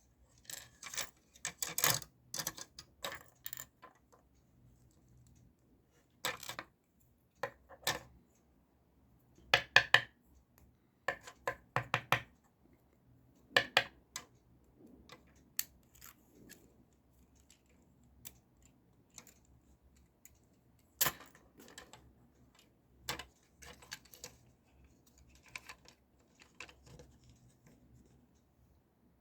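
Irregular clicks and clinks of small hard plastic and metal parts handled on a surface, as a toy gun is taken apart. They come in short clusters with quiet gaps between them.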